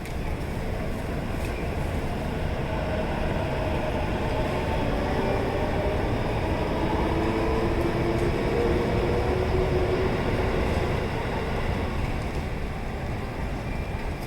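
JR Nambu Line electric commuter train running through the level crossing: a steady rail rumble with a motor whine that shifts slowly in pitch, growing louder toward the middle and easing off near the end.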